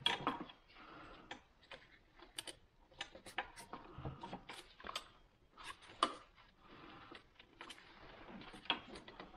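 Scattered light clicks and taps of a hydraulic trim hose end and its metal fittings being handled and seated at the back of a Volvo Penta SX gimbal housing, with soft rustling between them.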